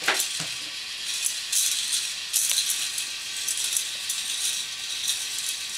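K'Nex plastic roller coaster running: the car and its track clattering and rattling in several short runs, with a sharp click at the start.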